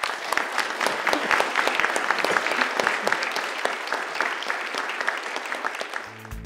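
Audience applauding, a dense run of handclaps that eases off near the end. Music begins just before the end.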